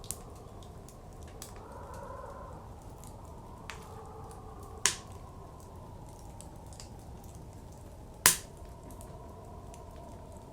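Wood fire crackling with a few sharp pops, the two loudest about five and eight seconds in, over steady blizzard wind blowing, which swells briefly about two seconds in.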